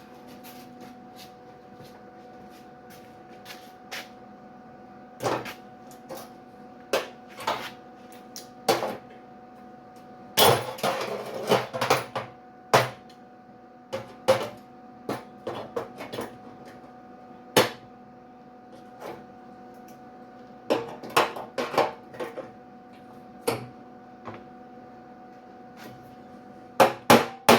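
MIG welder tack-welding sheet metal on a truck tailgate: short crackling tacks and sharp metal clicks and knocks at irregular intervals over a steady hum. The longest, densest crackle comes about ten seconds in and lasts over a second.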